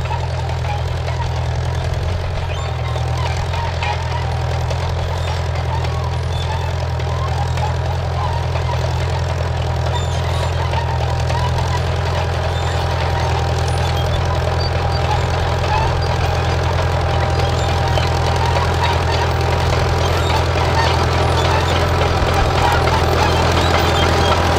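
Old crawler tractor's engine running steadily while it pulls an implement, its low, even beat growing gradually louder as the tractor comes closer.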